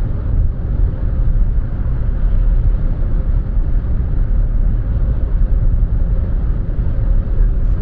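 Car cabin noise while driving at highway speed, about 70 mph: a steady low rumble of tyres and engine, with a faint steady hum.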